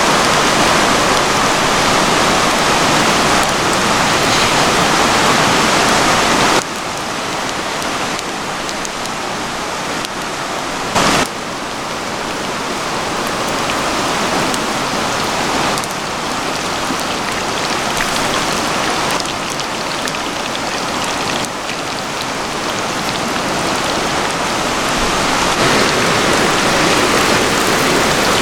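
Steady hiss of rain falling, mixed with running river water. The level drops or shifts abruptly a few times, and there is a brief louder burst a little over a third of the way in.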